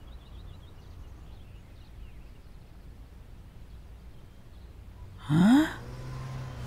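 Quiet outdoor ambience, then about five seconds in a girl's short, breathy, strained vocal sound rising in pitch: a deaf girl trying to say a word of confession aloud.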